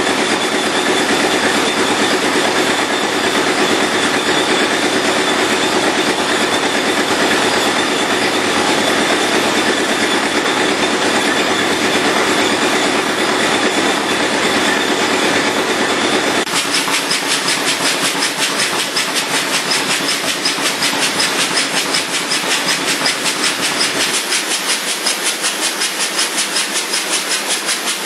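Antique Townsend 12-25 tractor engine running steadily. A regular pulsing beat comes through plainly from a little past halfway.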